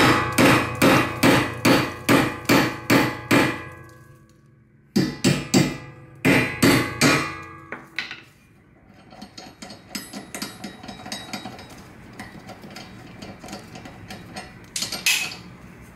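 Hammer blows on a lug nut threaded onto a pressed-in wheel stud in a Nissan Skyline R32 front hub, driving the old stud out. A quick run of about nine ringing metal strikes, then two shorter runs after brief pauses. Lighter metal clinks follow.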